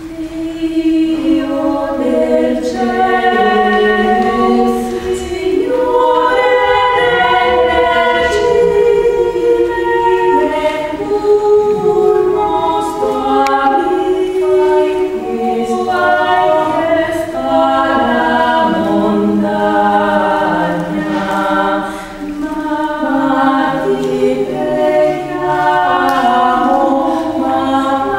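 Mixed choir of women's and men's voices singing a cappella in several parts, with a short breath pause about three-quarters of the way through.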